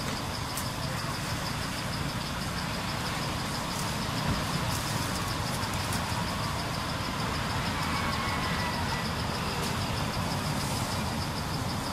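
Steady outdoor background: a low rumble like distant road traffic, with a high, fast, evenly pulsing trill running over it throughout.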